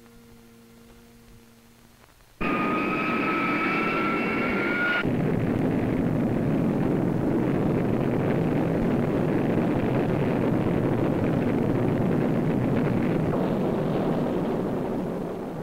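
Rocket engine roar at liftoff, starting suddenly a couple of seconds in after faint hum. Two high, slightly rising whistling tones ride over it for the first few seconds, then a steady roar that eases a little near the end.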